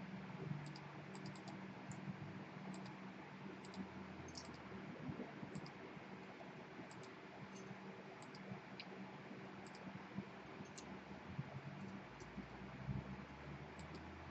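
Faint, irregular short clicks over a steady hiss and low electrical hum.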